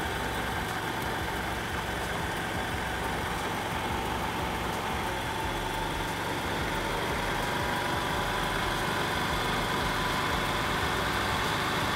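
Honda Activa scooter's single-cylinder four-stroke engine idling steadily while its carburetor air screw is slowly opened, the idle speed creeping up slightly as the mixture nears its best setting.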